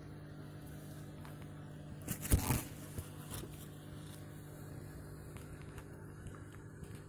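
Quiet room with a faint steady hum, broken by one brief rustling bump a little over two seconds in and a few faint clicks after it.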